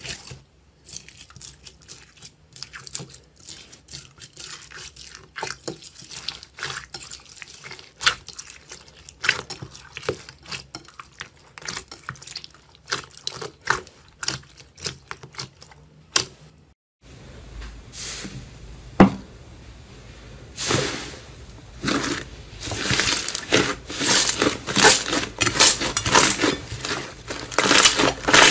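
Fingers pressing and poking a gold jelly slime full of tiny beads, making many small wet clicks and crackles. About two-thirds through, after a brief silence, it changes to louder and denser squelches and pops as two hands squeeze a thick brown slime.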